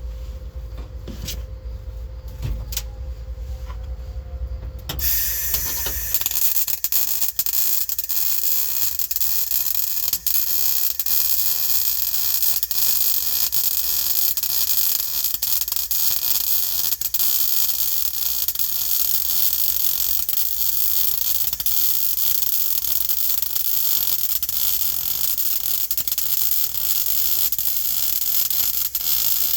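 Welding arc crackling steadily as a seam is welded along a car's steel floor pan, starting about five seconds in after a low hum.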